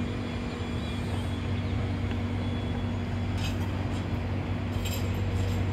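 UTA TRAX light rail train rolling slowly along street tracks with road traffic around it: a steady low hum over an even rush of noise, with a few faint clicks after about three seconds.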